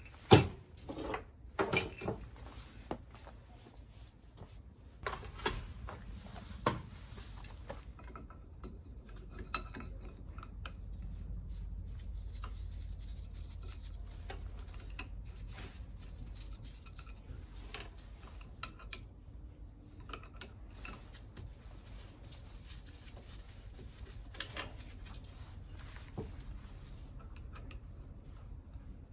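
Metal hand tools and scooter engine parts clinking and knocking as the engine is taken apart: scattered sharp clicks, the loudest about half a second in and most of them in the first few seconds, over a faint low rumble.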